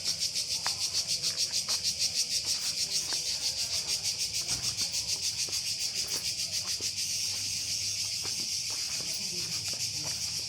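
Cicadas buzzing in a loud, high-pitched chorus that pulses about four times a second, then evens out into a steadier buzz in the second half.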